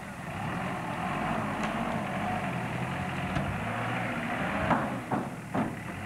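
Mitsubishi Pajero SUV's engine running steadily as it drives slowly through dry grass, with three sharp knocks near the end.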